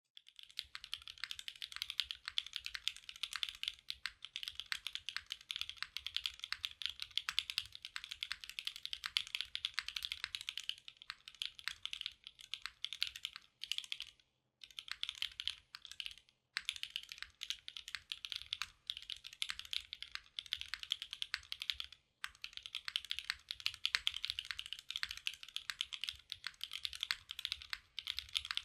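Continuous fast typing on a Kohaku R2 mechanical keyboard with Gateron Summertime switches mounted on an aluminium plate and GMK keycaps: a dense run of crisp keystroke clicks, broken by brief pauses about halfway through and again a little later.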